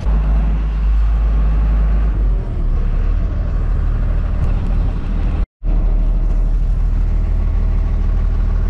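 Tow truck's engine running with a steady low drone, cut off for an instant a little past halfway.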